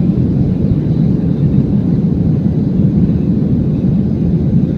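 Boeing 737-300 cabin noise in flight, heard inside the cabin over the wing: the steady low roar of its CFM56-3 turbofan engines and the airflow, with a faint thin high whine.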